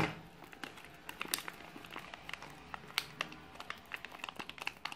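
Plastic anti-static bag crinkling in the hands as it is handled and opened, a sharp crackle right at the start, then scattered small crackles.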